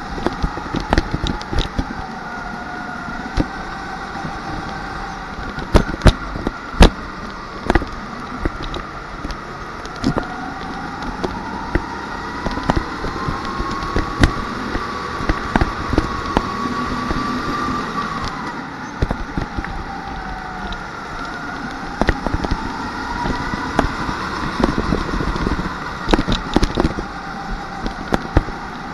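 Rental go-kart's motor heard from onboard, its whine rising and falling in pitch as the kart speeds up on straights and slows for corners, with sharp knocks and rattles throughout, two loud ones about six and seven seconds in.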